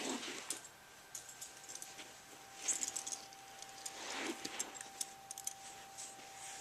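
Toy airplanes being handled: scattered small plastic clicks and rattles, with a few louder soft rushes of sound.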